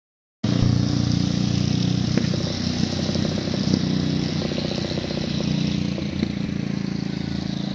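Motorcycle engine running steadily close by, with road and wind noise over it, starting after a brief dropout at the very start.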